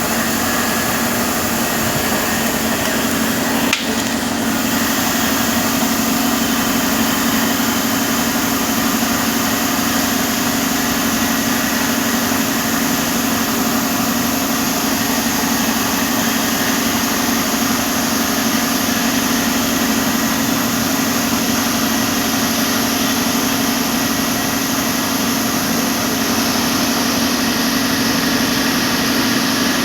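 CNC router running steadily: a constant low hum with a high hiss over it, and a single sharp click about four seconds in.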